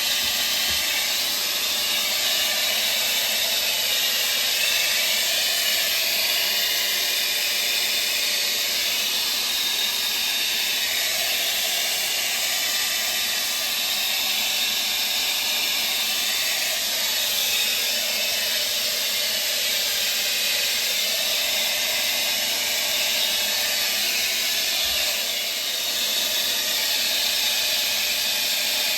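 Hair blow dryer running with a steady hiss of blowing air, melting the ice built up around a refrigerator's evaporator coil.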